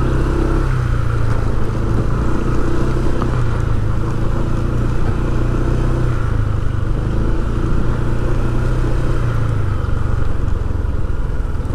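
Vehicle engine running steadily, with street traffic noise around it.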